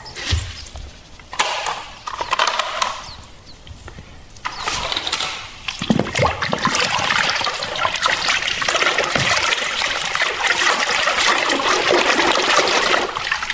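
Water running and splashing over toy vehicles as they are washed. It is fainter and patchy at first, then louder and steady from about four and a half seconds in.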